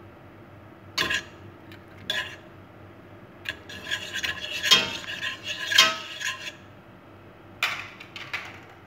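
Wire whisk stirring melting butter in a stainless steel pot, scraping and clinking against the metal. There are single strokes early on, a busier run of quick strokes through the middle, and two or three more near the end.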